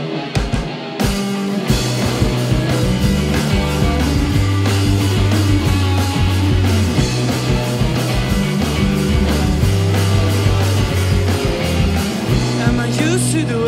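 Rock band playing: electric guitars over bass and drums at a steady beat, with the fuller band sound, cymbals included, coming in about a second in.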